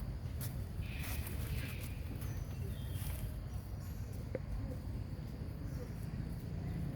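Outdoor background with a steady low rumble, a few faint short chirps and scattered light clicks.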